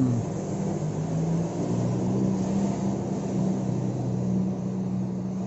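A motor running with a low, steady hum; its pitch shifts slightly about one and a half seconds in.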